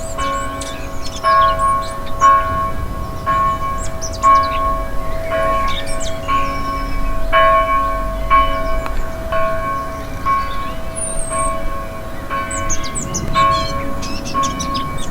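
A church bell tolling, struck about once a second, each stroke ringing on at the same pitch, with birds twittering over it.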